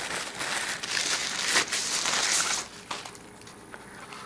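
Thin plastic packaging sleeve crinkling and rustling as it is pulled off a soundbar by hand. The crinkling stops about two and a half seconds in.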